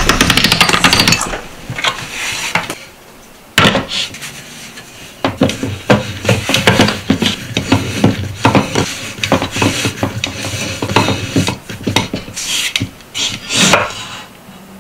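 Knocks and clatter of a wooden dowel against its wooden stand, with the rubbing of a floured noodle-dough sheet as it is wound and handled on the dowel. A fast, even run of ticks stops about a second in.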